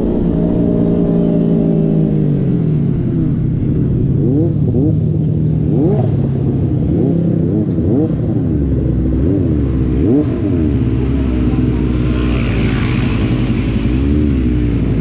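Yamaha R15 motorcycle with an aftermarket exhaust fitted to sound like a four-cylinder, running steadily and then revved up and down repeatedly from about three seconds in.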